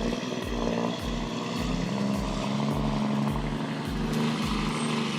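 A machine engine running steadily under background music with a regular deep beat of about two thumps a second.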